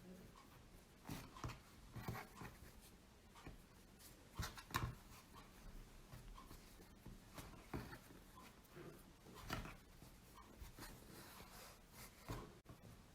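Faint, scattered light taps and rubbing sounds, one or two a second, with near silence between them.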